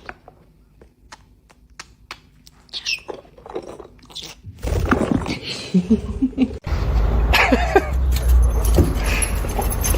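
A dog chewing and gnawing: a sparse run of small clicks and crunches. About halfway through it gives way to a louder, steady low rumble.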